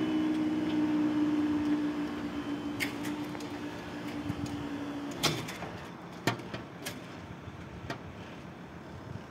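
Level crossing equipment as the barriers rise: a steady two-tone hum that cuts off about five seconds in with a clunk, followed by a few sharp clicks and knocks.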